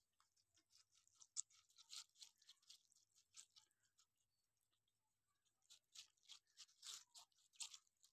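White rabbits biting and chewing watermelon flesh: quiet, rapid, crisp crunching in two busy spells with a pause about halfway through.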